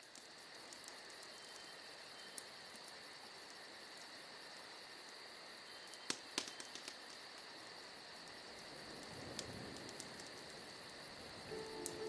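Cricket-like chirring: a steady high trill pulsing several times a second, with two sharp clicks about halfway through. Near the end, held musical tones come in as the track begins.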